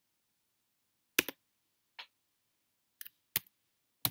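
Near silence, then about five short, sharp clicks at uneven intervals from a computer mouse and keys, the first and loudest doubled, as the slide show is advanced to its end.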